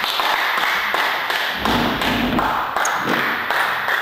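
Small crowd of spectators clapping steadily, a dense patter of many hands after the point that closes the game.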